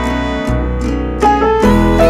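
Instrumental background music: a melody of short notes over a held bass note.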